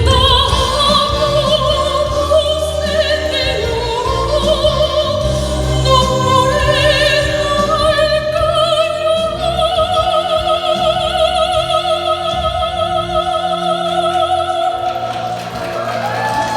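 Soprano singing in classical operatic style with wide vibrato over accompaniment. She sings several shorter phrases, then holds one long high note for about five seconds before the phrase ends.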